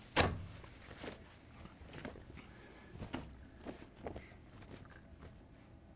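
A hand rummaging in a cloth sack of rice: a soft thump as the sack changes hands, then faint, scattered rustles and small taps.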